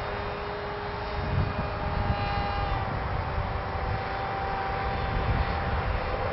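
Wing Dragon RC airplane's brushed electric pusher motor and propeller whining steadily in flight, the pitch sagging slightly partway through. Wind buffets the microphone with a gusty low rumble.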